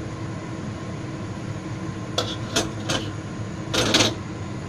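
Kitchen handling sounds at a bowl: three light clicks about two to three seconds in, then a short louder scrape near four seconds, over a steady background hum.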